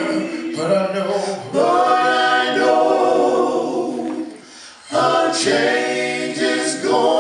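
Male vocal group singing a cappella in close harmony into microphones, holding sustained chords. The voices drop away briefly about four and a half seconds in, then come back in together.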